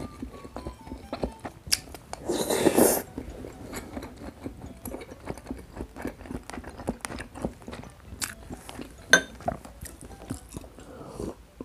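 Close-miked mouth sounds of someone chewing rice, shrimp and sauce: many small wet smacks and clicks. There is a louder noisy burst about two seconds in and one sharp click about nine seconds in.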